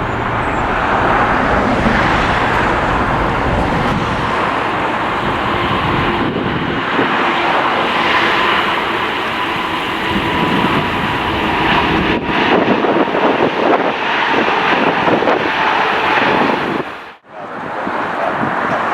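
Heavy jet airliner's engines running, a loud steady noise with a faint thin whine through the middle. The sound cuts out for a moment near the end.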